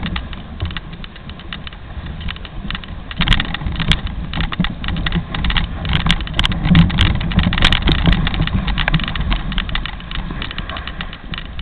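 Moving dog sled on snow: a steady low rumble from the runners with many irregular clicks and knocks as the sled rattles over the surface.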